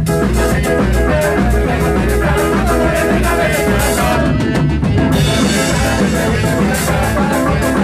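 Ska band playing live with drum kit, guitar and bass in an instrumental passage: a steady, even drum beat under the guitar.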